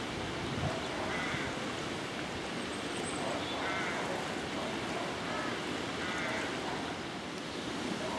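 Swollen river running steadily, a constant rushing hiss, with a duck quacking several times over it.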